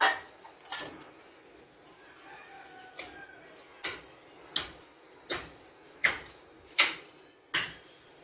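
Heavy meat cleaver chopping into a beef shank bone on a wooden chopping block: about nine sharp blows, two at the start, then after a pause a steady chop roughly every three-quarters of a second.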